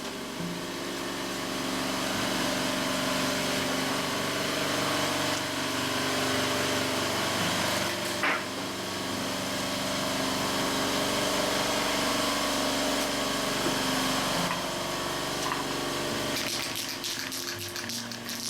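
Workshop air compressor running steadily after cutting in to refill its tank, a mechanical drone with a hum of steady tones. A rush of air starts near the end.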